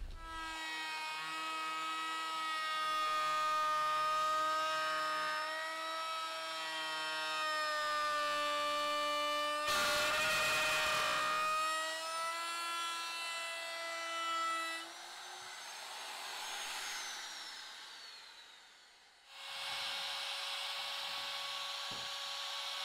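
Handheld electric wood router running with a steady high whine while trimming the overhanging edge of a plywood seat panel, louder and rougher for a couple of seconds about ten seconds in. Near fifteen seconds the motor winds down with a falling pitch, and a router starts again just before twenty seconds with a higher whine.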